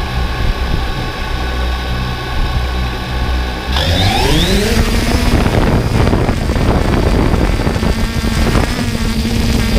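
Quadcopter drone motors whining steadily at idle, then spinning up with a rising whine about four seconds in as the drone lifts off. It then hovers with a steady motor hum under rushing wind noise.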